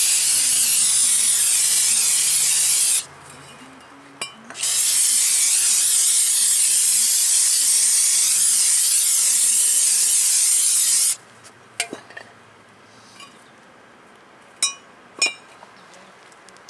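Aerosol brake cleaner spraying onto a new brake rotor to wash off its machining oil, in two long hissing blasts: one of about three seconds, then after a short pause one of about six seconds. A few light clicks follow near the end.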